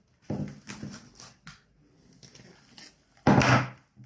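Containers being handled and set down: scattered light clatters and knocks, then one loud clunk about three seconds in.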